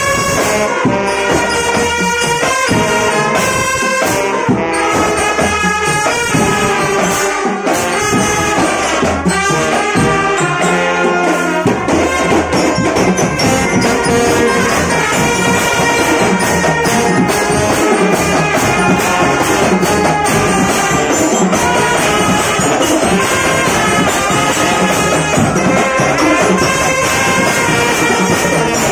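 A marching drum band playing: trumpets and other brass carry the tune over snare and bass drums. The arrangement turns busier and denser about twelve seconds in.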